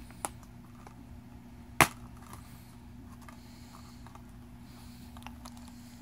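Plastic Blu-ray case being opened: a light click just after the start, then one sharp, loud snap a little under two seconds in, then a few faint handling clicks.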